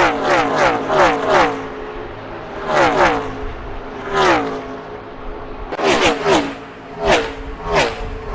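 NASCAR stock cars' V8 engines at full throttle passing the microphone one after another, each engine note dropping sharply in pitch as the car goes by. Several pass in quick succession at the start, then single cars follow about a second or so apart.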